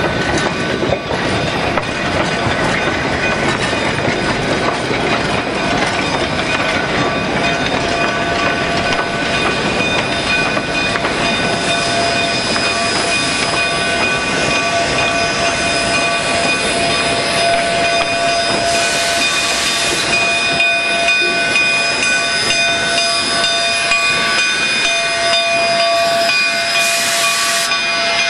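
Narrow-gauge steam train rolling slowly past: freight cars rumbling and clattering on the rails, with several steady squealing tones. There are two short bursts of steam hiss, the second as steam locomotive 483 draws level near the end.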